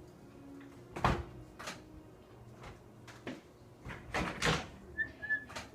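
A series of knocks and thuds, like a door or a cupboard being handled, loudest about a second in and again around four seconds in, with two brief high chirps near the end.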